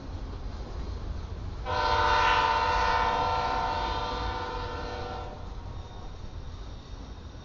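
A locomotive air horn sounds one long blast of about three and a half seconds, starting about two seconds in and fading towards the end, over the low steady rumble of loaded flatcars rolling past.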